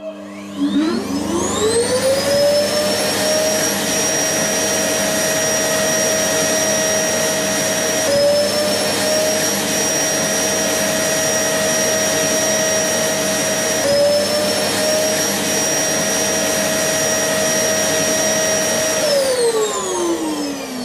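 Vacuum cleaner motor spinning up with a rising whine, running steadily at a high pitch with two brief dips in speed, then winding down with a falling pitch near the end.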